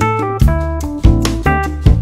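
Instrumental background music: a melody of short, stepping notes over a bass line and a drum beat.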